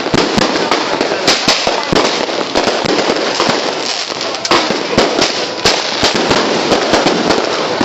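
Fireworks going off without pause: many sharp bangs and pops a second, irregularly spaced, over a constant crackling din.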